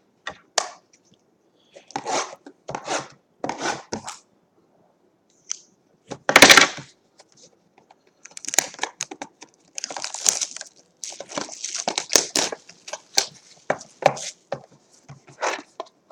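Trading card packaging being torn open and crinkled by hand: irregular bursts of tearing and rustling, with the loudest rip about six and a half seconds in.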